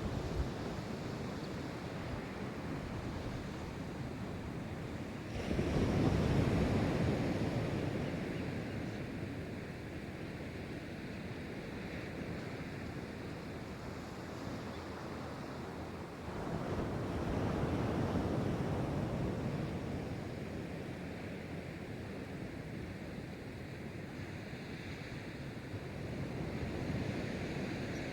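Pacific Ocean surf breaking on the shore: a steady rushing wash, with three waves crashing about ten seconds apart, each swelling up fast and then slowly fading away.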